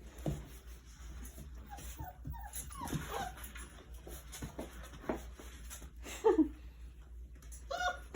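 Four-week-old puppies whimpering and yipping in short squeaks that fall in pitch, one louder than the rest about six seconds in.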